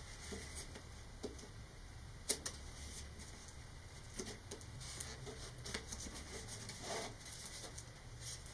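Hands working masking tape onto a cardboard model rocket body tube: soft scattered clicks and crinkles of tape and tube being handled, with one sharper click a little over two seconds in and a short rasp of tape peeling late on.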